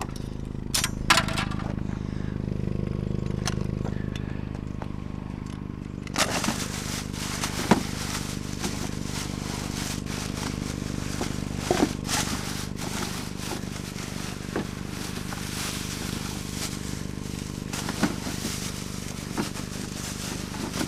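A vehicle engine idling with a steady low hum, with scattered sharp knocks and clicks over it, as of junk being handled.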